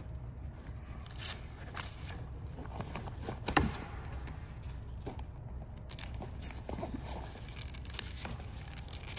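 Nylon webbing strap being pulled and fed through a buckle and strap loops by hand: irregular rustling and scraping, with one sharper knock about three and a half seconds in.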